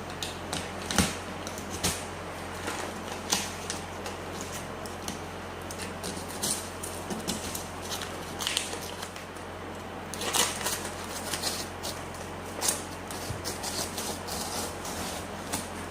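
Irregular clicks and rustles of a small object being handled, with a louder click about a second in and others near 3, 10 and 13 seconds, over a low steady hum.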